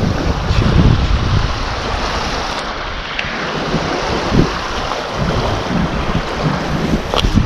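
Strong gusty wind buffeting the microphone with a low, uneven rumble, over the steady wash of wind-driven waves on a lake.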